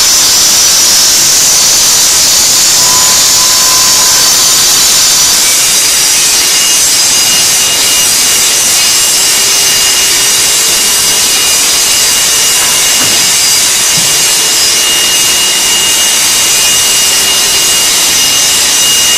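ESS 3000 stone saw running and cutting stone, a loud, steady, high-pitched hiss of the blade through the stone, with a faint steady whine joining in after about six seconds.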